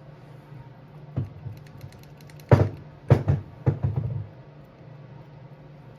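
Hands handling engine parts and tools during motorcycle engine disassembly: a knock about a second in, then a quick cluster of sharper knocks and clicks, over a faint low hum.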